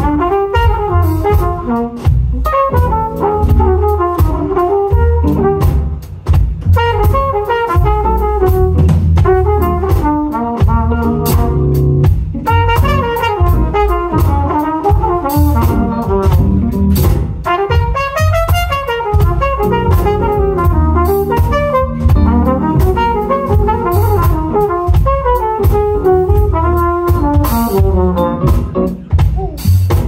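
Live jazz band: trumpet playing a quickly moving melodic line over electric bass and drum kit.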